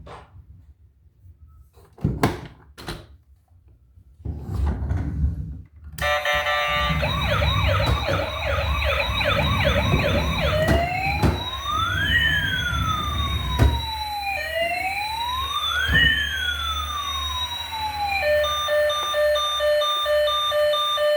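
A few handling knocks, then about six seconds in a battery-powered toy emergency vehicle's electronic siren switches on. It gives a fast warble, then two slow wails that rise and fall, and near the end a steady pulsing beep pattern, all over a low rumble.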